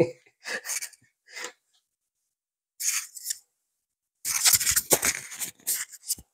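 Short bursts of scratchy handling noise: a few brief rustles, then a longer cluster of scrapes and clicks about four seconds in.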